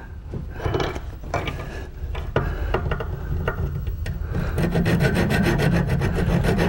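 Scattered clicks and knocks as a spring-steel bar blank is reset in a bench vise, then a large hand file rasping across the steel in quick, even strokes from about four and a half seconds in, thinning the side of the spring's peg.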